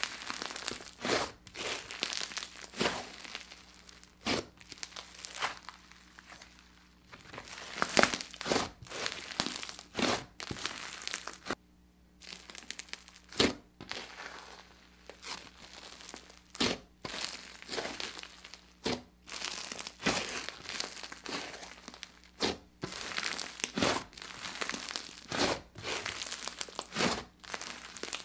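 Hands kneading and squeezing a thick pink slime, giving off irregular crackling, crinkly pops and squishes, in clusters as the slime is folded and pressed.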